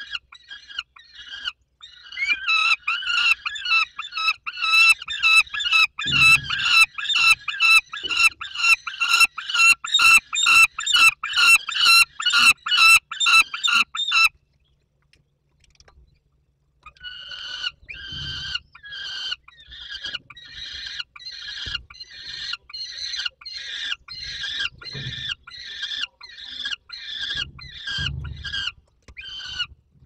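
Young peregrine falcons' harsh food-begging calls, fast and repeated at about two to three a second; the calling breaks off for about three seconds in the middle, then resumes. A few dull thumps are mixed in.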